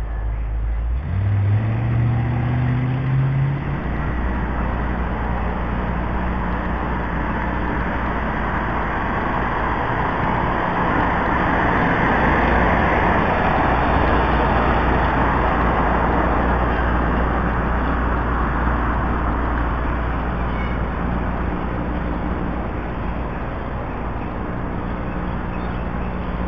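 A car going past: its engine note rises as it accelerates in the first few seconds, then a long swell of engine and road noise peaks about halfway and slowly fades.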